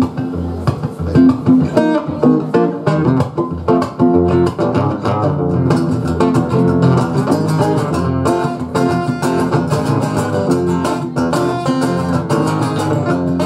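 Two acoustic guitars playing an instrumental introduction, with picked notes and strummed chords, before the vocals come in.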